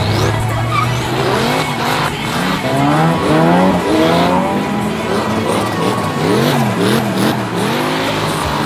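Drift cars' engines revving up and down over and over as they slide sideways through the corners, with tyres skidding on the wet track.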